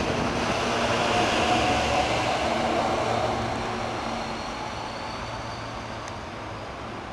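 An İZBAN electric commuter train running past close by and then moving off down the line, its noise dying away after about three seconds. A faint whine rises in the second half as it goes.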